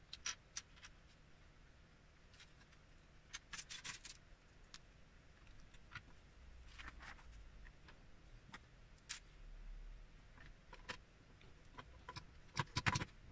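Plastic LEGO bricks clicking and clattering as they are picked from a loose pile and pressed onto a model. The clicks are scattered and sharp, with a quick cluster of louder ones near the end.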